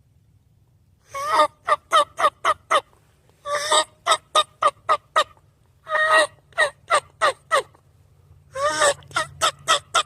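Woodhaven Raspy Hen diaphragm mouth call blown in hen-turkey yelping: four runs, each opening on a longer note followed by five or six short, quick yelps, a run about every two and a half seconds.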